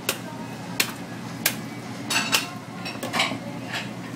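Kitchen clatter: about seven sharp clinks and knocks of dishes and metal utensils, spread unevenly over a few seconds, with steady low background noise.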